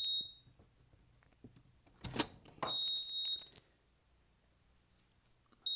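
FireLite fire alarm control panel's trouble beeper sounding a high-pitched beep of under a second about every three seconds, three times, after its mains power is unplugged and it switches to battery backup. A single sharp clunk about two seconds in.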